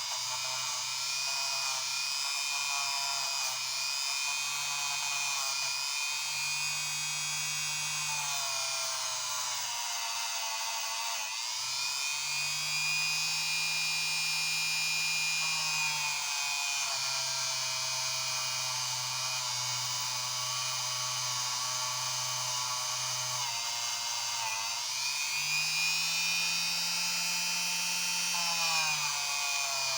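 Small high-speed rotary tool running continuously with a steady whine, its pitch sliding down and back up a few times as its speed changes.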